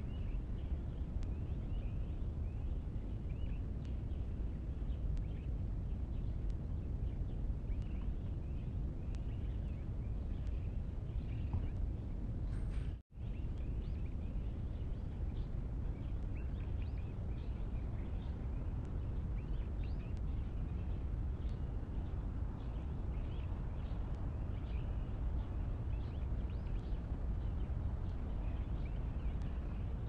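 Small birds chirping in short, frequent calls over a steady low outdoor background rumble. The sound cuts out completely for an instant about thirteen seconds in.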